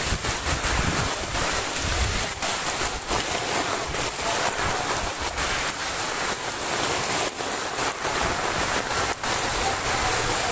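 Heavy typhoon rain and flowing floodwater, a steady rushing noise, with wind buffeting the microphone in the first couple of seconds.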